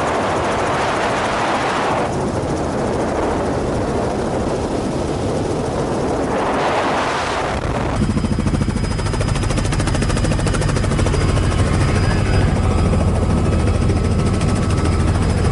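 Helicopter in low flight heard from inside the cabin: a loud rush of wind and rotor noise, which about halfway through gives way to a steady rapid beat of the rotor and engine over a low drone.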